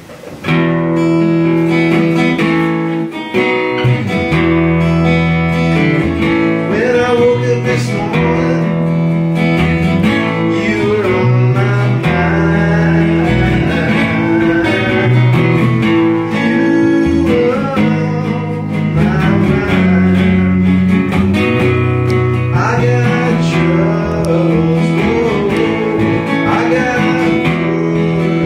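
Small live band playing: strummed acoustic guitar, electric bass and keyboard, with a man singing lead. The music starts about half a second in.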